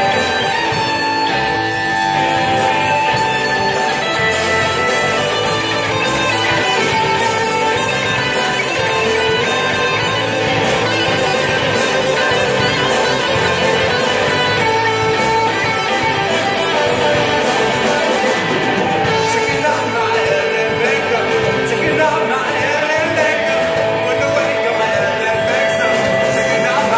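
Live rock band playing loud: electric guitars, bass and drums with a steady, even cymbal beat, and a singer's voice over it. A long held note sounds near the end.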